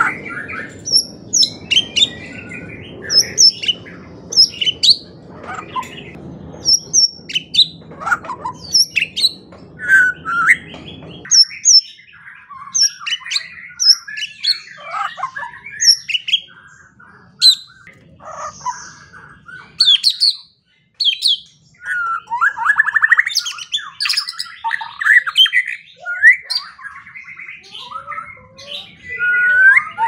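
White-rumped shama singing a fast, varied song of clear whistles, chirps and harsher notes, one phrase after another. A low background hum stops suddenly about a third of the way through.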